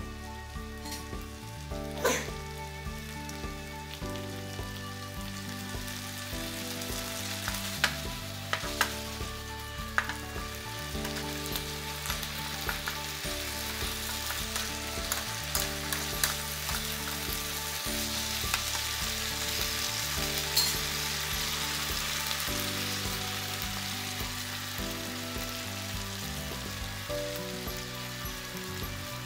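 Sliced beef and onion sizzling in a nonstick frying pan as a spatula stirs them, with a few sharp clacks of the spatula against the pan, the loudest about two seconds in. The sizzle swells a little toward the middle.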